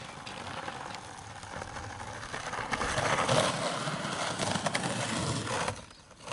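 Skateboard wheels rolling over a dirt and grit track: a steady gritty rumble with small clicks from stones, loudest about three seconds in, dropping away just before the end.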